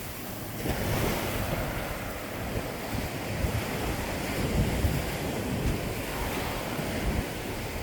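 Caribbean sea surf washing onto a beach, with wind buffeting the microphone in gusty low rumbles.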